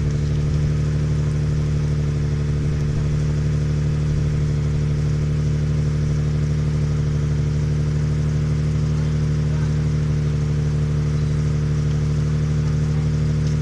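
2004 Nissan Fuga's VQ25DE 2.5-litre V6 idling steadily on a cold start, through a straight-pipe exhaust with the mufflers deleted and the catalytic converters kept.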